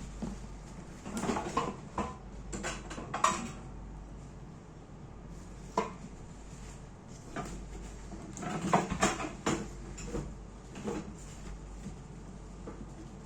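Hard objects being handled and set down: irregular clicks, knocks and light clatter, in two busy spells with quieter gaps between.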